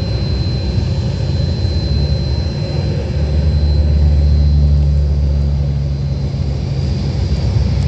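Antonov An-12's four Ivchenko AI-20 turboprop engines running on the ground: a deep steady drone with a thin high whine. The drone swells briefly about halfway through.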